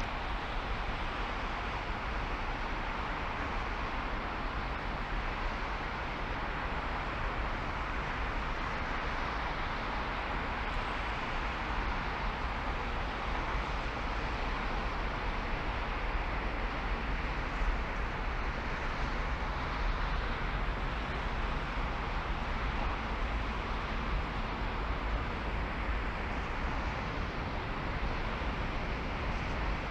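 Steady road and wind noise of a car driving: an even hiss with a constant low rumble.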